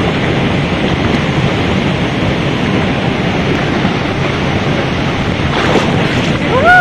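Steady rush of a shallow, rocky river flowing close around the microphone. Right at the end a voice starts a rising call.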